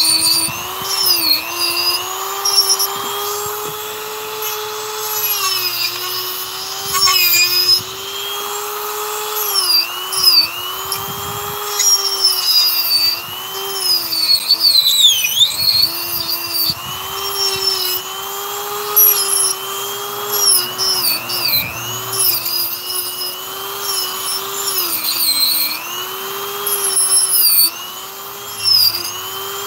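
Dremel-type rotary tool carving wood: a continuous high whine that keeps sagging in pitch as the bit is pressed into the wood and rising again as it is eased off.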